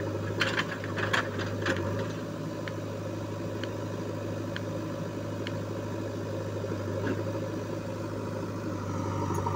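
JCB backhoe loader's diesel engine running steadily while it digs, with a few sharp clanks from about half a second to two seconds in and faint ticks about once a second after that.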